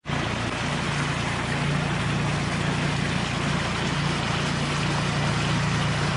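Water rushing steadily through a concrete spillway, a constant loud rush with a low hum beneath it.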